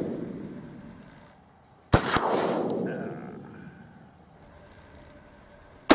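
A 12-gauge shotgun firing a magnum TruBall Foster-type slug: one sharp report about two seconds in, a second fainter crack a moment after it, then a long rolling echo that dies away over about two seconds. The tail of the previous shot's echo is fading at the start, and another shot goes off right at the end.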